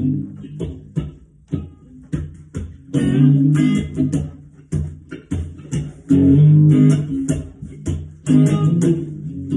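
Electric guitar played rhythmically: short choppy strokes, with fuller chords ringing out about three, six and eight seconds in.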